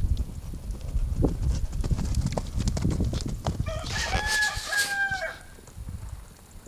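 Dull hoofbeats of a horse cantering on arena sand, with wind rumbling on the microphone. About four seconds in, a rooster crows once, a single held call lasting about a second and a half.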